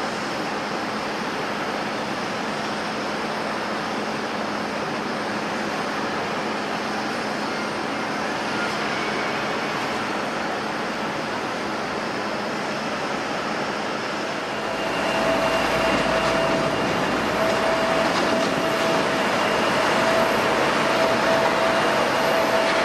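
Jet airliner engines running with a steady rushing noise, growing louder about two-thirds of the way through as a steady engine whine comes in.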